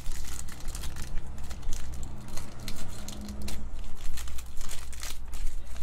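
Foil trading card pack crinkling with quick, irregular crackles as it is handled and pulled open by hand.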